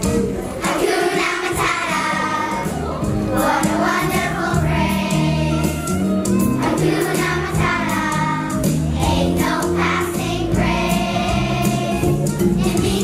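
A choir of young children singing a song together in phrases, with an instrumental accompaniment carrying bass notes and a beat underneath.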